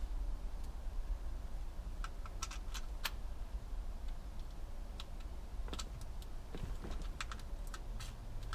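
Scattered light clicks and taps of plastic and metal parts being handled, a cluster about two to three seconds in and more near the end, as an ignition lock cylinder is worked back into a steering column. Under them runs a steady low hum.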